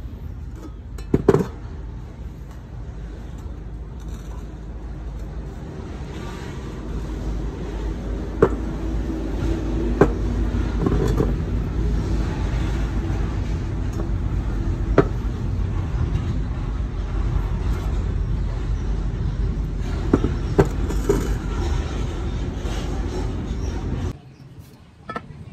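Steady low rumble of road traffic, with several sharp knocks scattered through it; the rumble drops away suddenly near the end.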